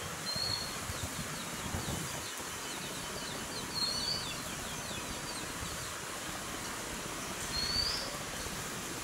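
Wild birds calling: a run of quick high chirps through the first half and three short whistled notes a few seconds apart, the last one rising, over a steady outdoor hiss.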